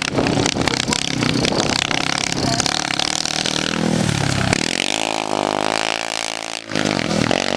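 Formula Student race car's engine running hard as the car laps a cone course. Near the end the engine note climbs steadily in pitch for about two seconds, then breaks off abruptly before picking up again.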